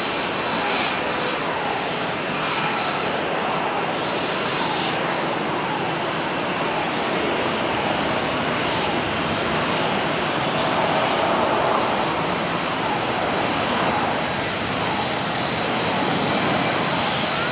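Steady jet engine noise from a Lufthansa Airbus A380's four Rolls-Royce Trent 900 engines at low thrust as the airliner slows and taxis after landing. Faint falling whines recur every second or two.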